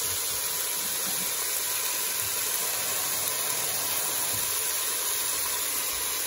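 Diced leeks, carrots and onion sizzling steadily in hot olive oil in a pot: an even, unbroken hiss.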